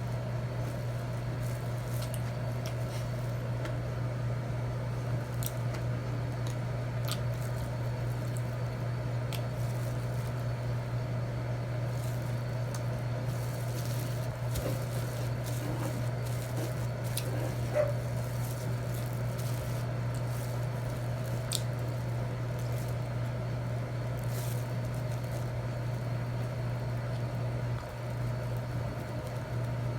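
Eating sounds over a steady low hum: chewing, with scattered small clicks and taps of utensils on a plate.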